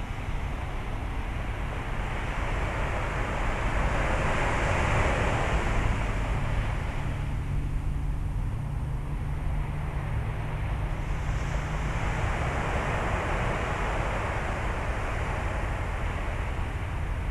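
Outdoor rushing noise that swells and fades twice, over a continuous low rumble with a steady low hum.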